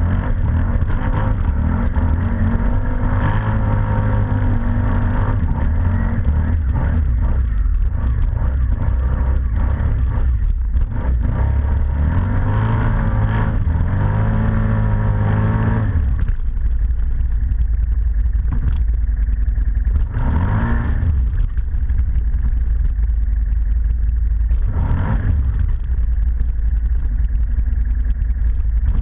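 ATV engine running under load, its pitch rising and falling with the throttle for the first half, then settling to a lower, steady run broken by two short revs.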